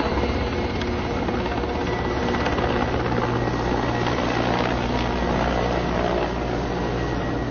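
Escort helicopter flying, its rotor and engine making a steady low beating sound.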